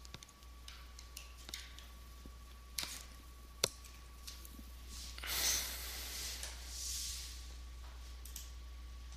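A few sharp clicks, the loudest a little before the middle, then two breathy rushes of noise one after another. A steady electrical hum runs underneath.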